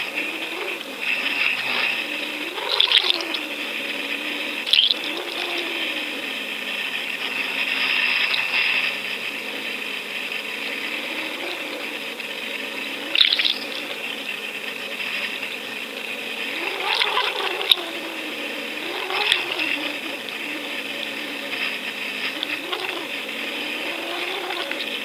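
Water rushing past an underwater camera towed with trolled squid rigs, over a steady high whine and a low hum that rises and falls in pitch, with several short, louder rushes of water.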